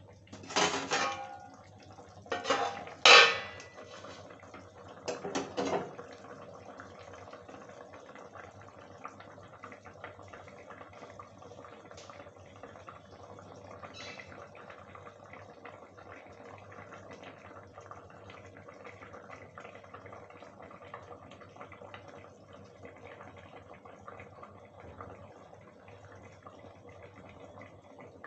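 Clanks and clatter of a stainless-steel compartment plate being set over a kadhai as a lid, metal on metal, in three bursts during the first six seconds, the loudest about three seconds in. After that the covered curry simmers with a faint steady hiss while its gravy is boiled down.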